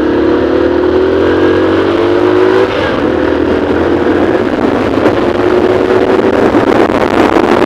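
Two-wheeler's engine accelerating, its pitch climbing for the first few seconds, then dropping suddenly and running on steadily, with wind rushing past the microphone.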